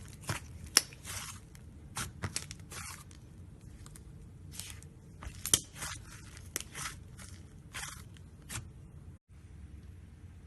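Slime and floam being squeezed and kneaded by hand, giving irregular crisp crackles and crunches that stop about nine seconds in.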